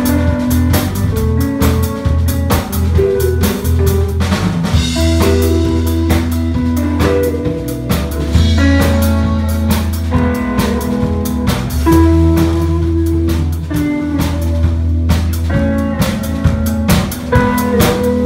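Live blues-rock band playing without vocals: electric guitar through a Marshall amp, with bass guitar and a drum kit keeping a steady beat.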